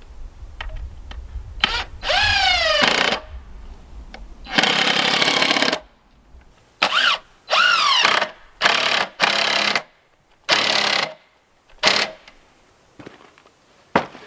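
Cordless drill/driver driving screws into wooden boards in about eight short runs. In several runs the whine falls in pitch as the screw draws tight into the wood.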